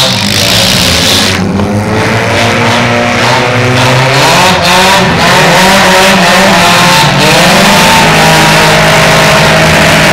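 Several demolition derby cars' engines revving hard at once, their pitch rising and falling as they accelerate and back off.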